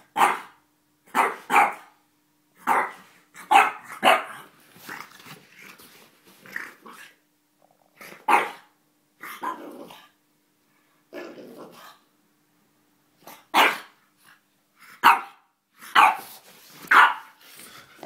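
French bulldog barking in play: a string of short, sharp barks in irregular clusters, with growls in between.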